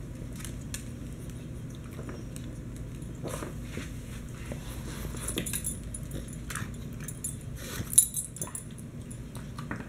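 Pug chewing a hard chew treat: irregular small crunches and clicks, with one sharper click about eight seconds in.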